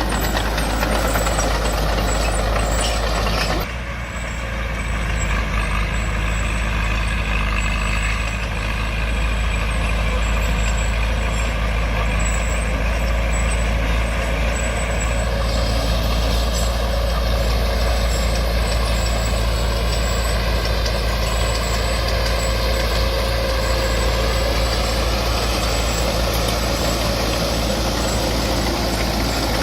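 Heavy diesel earthmoving machinery running continuously, its engine note steady, with a brief drop in level about four seconds in.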